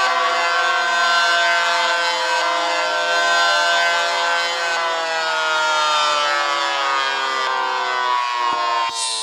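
Siren sounding with a full, many-toned wail whose pitch slides slowly and steadily downward. Just before the end the sound changes abruptly and gets quieter.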